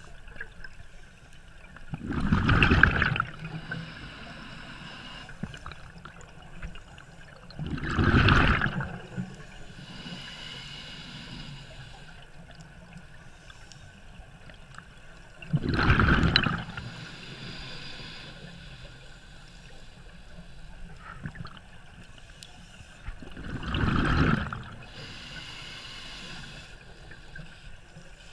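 Scuba regulator breathing underwater: four loud, bubbly exhalations, roughly every six to eight seconds and each about a second long, with a softer hiss between them.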